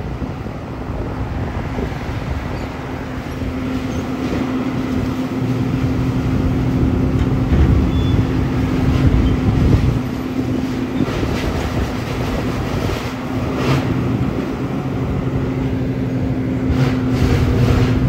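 Heavy machinery engines running steadily, a compact excavator working behind a dump truck, with a constant low hum and a rumble that rises and falls as it works. Scattered knocks and clatter in the second half.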